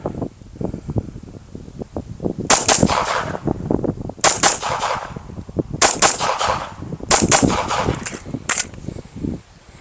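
Glock pistol firing four quick pairs of shots, a couple of seconds between pairs, then one more single shot near the end.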